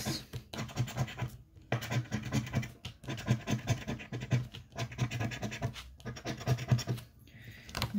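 A coin-shaped scratcher token scraping the coating off a scratch-off lottery ticket in rapid back-and-forth strokes. The strokes come in short bursts with brief pauses between them and ease off near the end.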